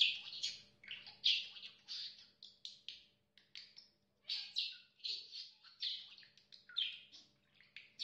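Pet parakeet chirping and chattering in a quick series of short, high calls with brief pauses between them.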